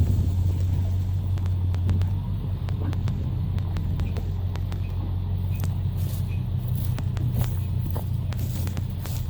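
Ford 7.3-litre V8 turbo-diesel engine running steadily, a low drone with scattered light clicks and rattles throughout.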